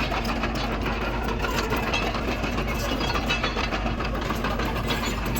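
Heavy diesel earthmoving machinery running steadily: a constant low engine drone with a rapid clatter over it.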